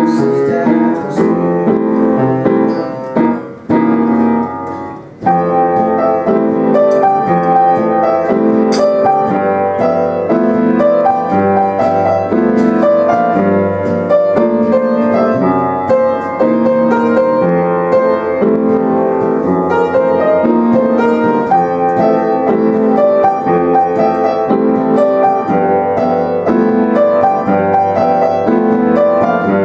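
Piano playing an instrumental passage with no singing; the playing thins out about three seconds in and picks up fully again about five seconds in.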